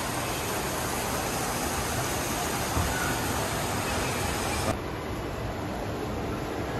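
Steady ambience of a large indoor mall: an even hiss of fountain water with distant crowd murmur. About two-thirds through, the background changes suddenly to a duller hiss.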